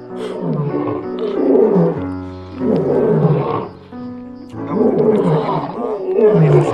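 A large animal roaring in three long calls that swoop up and down in pitch, with sustained music chords between the calls.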